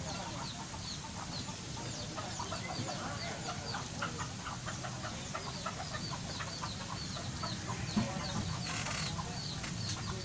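A steady night chorus of many short, high chirps from small animals, several a second, over a low steady hum. There is a brief rush of noise near the end.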